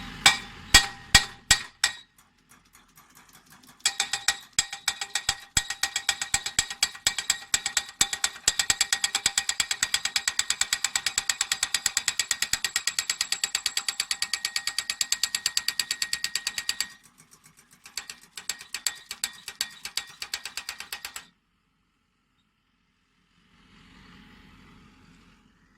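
Pile driver hammering a steel pile: fast, evenly spaced metallic strikes, several a second, each with a ringing clang. The hammering pauses briefly a few times and stops about three-quarters of the way through.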